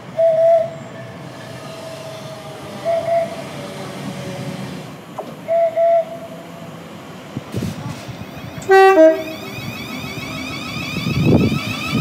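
Short train horn toots of about half a second each, sounded every few seconds by Class 345 electric trains as they approach. About nine seconds in comes a louder two-tone horn blast, followed by the steady running noise of a train.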